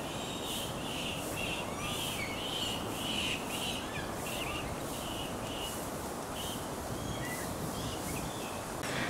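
Outdoor ambience: a steady background rush with small birds chirping, a repeated high call about twice a second and a few short whistled notes. The chirping thins out in the second half.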